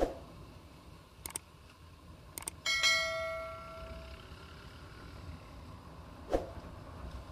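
A single bell-like metallic ring, struck once about two and a half seconds in and dying away over about a second and a half, preceded by a few sharp clicks and followed by one knock.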